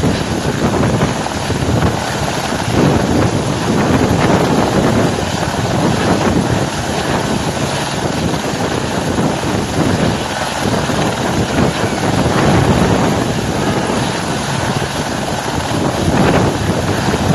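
Helicopter engine and rotor running steadily, its noise mixed with wind buffeting the microphone.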